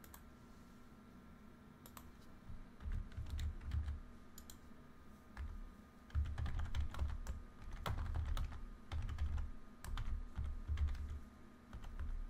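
Typing on a computer keyboard in irregular bursts with short pauses. The keystrokes click and carry dull low thuds, over a faint steady hum.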